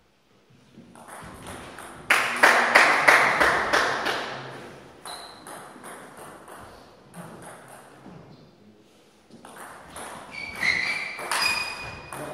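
Scattered applause for a table tennis point about two seconds in, fading over a couple of seconds. Near the end come the ticks of a celluloid table tennis ball and a few short high squeaks as the next point gets under way.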